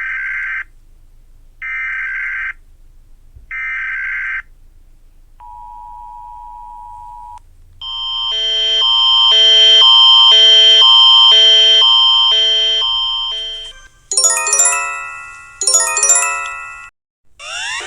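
Emergency Alert System-style alarm tones. They open with three short data-burst screeches about a second apart, the pattern of an EAS header, then a steady two-tone beep for about two seconds. After that comes a loud pulsing, chord-like alarm that swells and fades, then two runs of falling beeps, and rising sweeps begin near the end.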